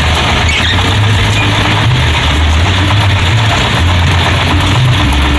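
Stationary diesel engine running steady and noisy, driving a Ferris wheel ride through V-belts and pulleys.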